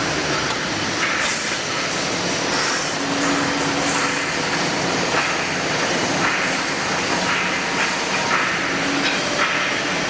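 Full automatic wire mesh panel welding machine running: a steady mechanical din with repeated short clattering strokes, roughly one a second.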